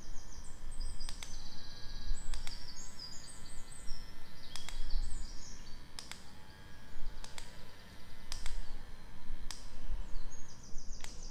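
Battery-powered handheld milk frother (Perfin PFKG03) running in the air with its spring whisk spinning, a steady thin motor whine. Birds chirp in the background throughout, with a few sharp clicks.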